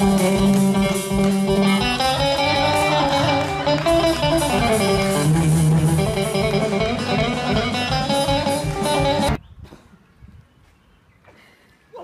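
Live band playing loudly on electric and acoustic guitars, bass and drums. The music stops abruptly about nine seconds in, leaving only faint background sound.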